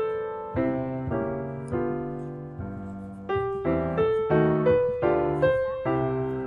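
Background piano music: a melody and chords, each note struck and then dying away.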